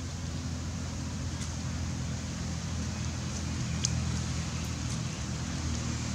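A steady low, engine-like rumble, with a short sharp click about four seconds in.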